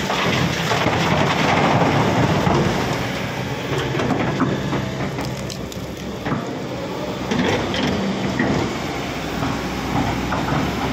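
Kobelco SK210 hydraulic excavator's diesel engine running steadily under load as a bucketful of broken rock pours into a dump truck's steel bed, the stones rattling down for the first two or three seconds. It then swings back and digs, with scattered knocks of the bucket against rock.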